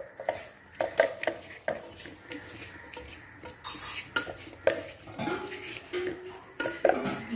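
Raw chicken pieces being mixed with spice powders by hand inside an aluminium pressure cooker: irregular knocks and clinks of the hand and chicken against the metal pot.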